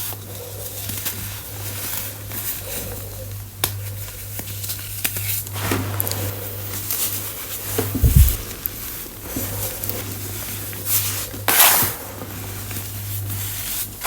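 Reformed baking soda chunks being crushed: scattered crunches and crackles, the loudest a few seconds before the end, with a low thump about eight seconds in. A steady low hum runs underneath.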